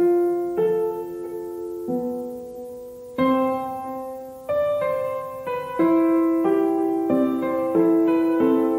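Background music: a piano playing a slow run of chords, each struck about once a second and left to ring and fade.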